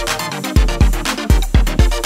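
Upbeat electronic background music with a steady kick-drum beat, about four beats a second.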